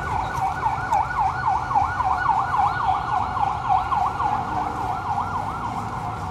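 Electronic siren in yelp mode: a fast rising-and-falling wail repeating about four times a second, fading out near the end.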